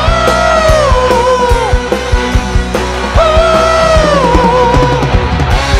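Live dangdut band playing: a lead melody of long held notes that slide down in pitch, in two phrases, over a drum beat and bass.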